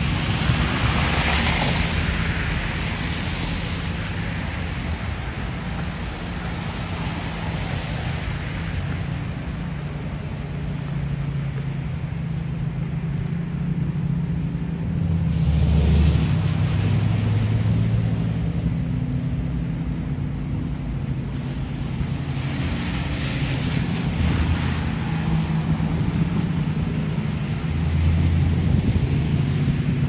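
Downtown street traffic on a snowy road: a steady low engine hum with vehicles passing, their tyres hissing on the road. The passes are loudest about two seconds in, around fifteen seconds in and around twenty-four seconds in.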